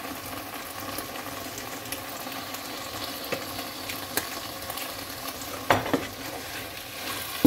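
Diced chicken in a tomato-paste sauce sizzling in a frying pan while a wooden spoon stirs and scrapes through it, with small clicks throughout and a few louder knocks of the spoon against the pan about six seconds in.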